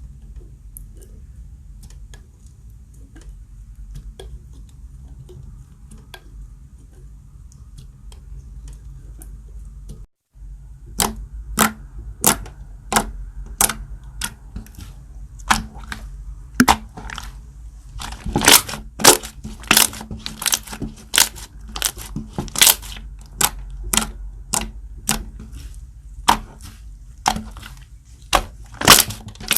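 Slime being squeezed and poked, making sharp, loud popping clicks at an irregular pace, about one or two a second. Before a short break about a third of the way in, the clicks are only faint.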